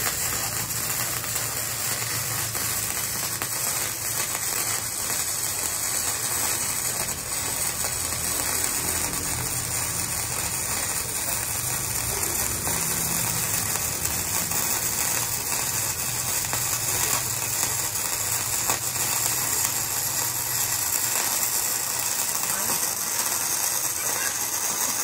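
Gasless flux-core MIG welder (KOBE MIG-272 PRO) at about 65 amps, laying one long continuous bead on thin steel. The arc gives a steady, dense crackle.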